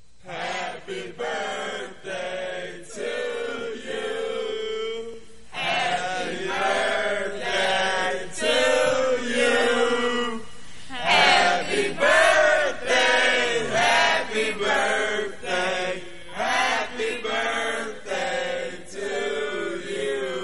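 A singing voice holding long, wavering notes in phrases, with no beat under it.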